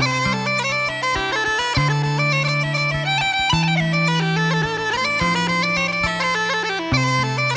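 Uilleann pipes playing a fast traditional tune, the chanter's melody moving quickly over low accompanying notes that change about every second.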